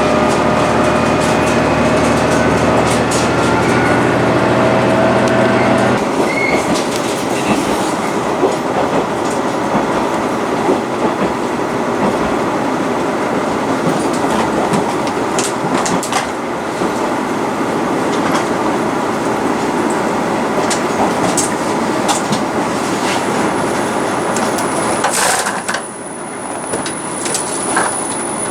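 Diesel train running on the rails: an engine drone for the first six seconds, then the rumble of wheels on track with scattered clicks over rail joints. A thin high whine starts near the end.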